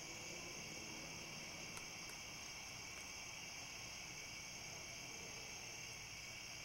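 Crickets chorusing steadily: a continuous high-pitched trill with a few faint ticks.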